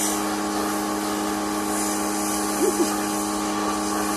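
Electric pressure washer running steadily, its motor humming over the hiss of the water spray.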